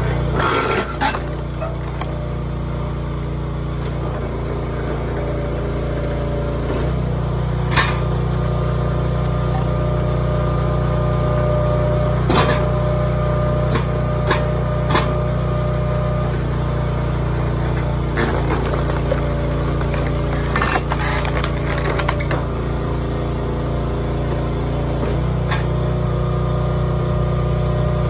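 Hydraulic log splitter at work: an engine runs steadily, its note shifting as the splitter takes up load. Logs crack and splinter apart in sharp snaps several times, with a run of cracks about two-thirds of the way through.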